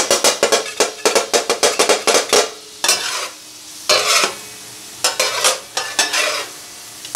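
Flat metal spatula rapidly chopping and scraping minced meat on a hot tawa griddle, about five sharp strikes a second, over sizzling ghee. After about two and a half seconds the chopping stops, leaving a few slower scrapes over a steady sizzle.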